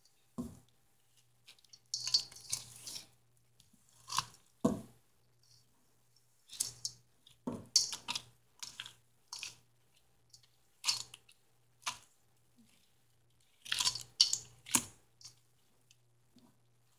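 A wooden spoon stirs ice cream mixed with crushed hard-candy lollipop pieces in a stainless steel bowl, giving irregular wet squishes, scrapes and knocks against the bowl.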